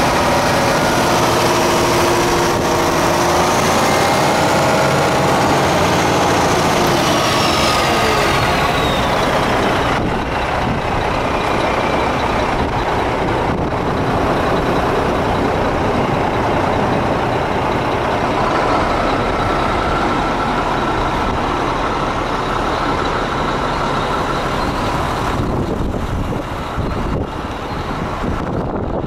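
Diesel engine of a 1996 Mack concrete mixer truck running steadily. A high whine slowly falls in pitch over the first ten seconds or so.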